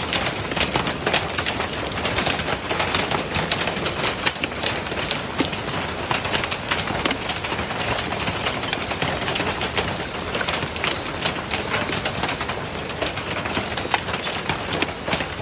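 Hailstones pelting the forest, a dense, steady clatter of countless small hits.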